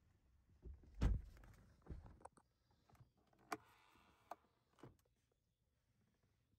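Handling sounds on the Mercedes-AMG GT S: one heavy thump about a second in, then several sharp clicks and a brief whirring hiss in the middle.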